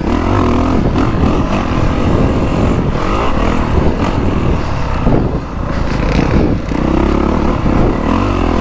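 2024 Honda CRF450R Works Edition's 450 cc single-cylinder four-stroke engine revving under throttle on a motocross track, rising and falling in pitch as the rider works the throttle through turns and jumps. It eases off briefly about halfway through, then pulls again.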